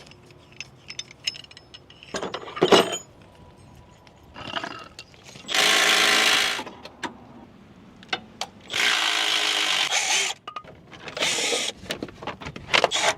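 Handheld power tool run in three bursts of about a second each on suspension bolts, with scattered clanks and clicks of metal parts and tools between them.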